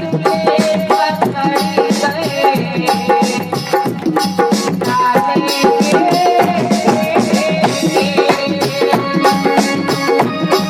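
Indian devotional music: tabla playing a quick, steady rhythm under a held melody line.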